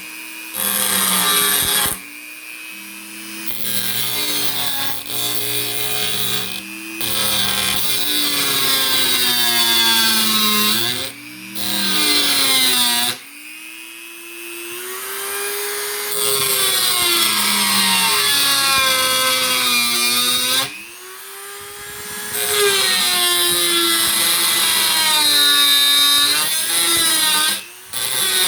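Handheld power tool grinding down sharp edges. The motor's whine sags in pitch under load and climbs back, stopping and restarting several times.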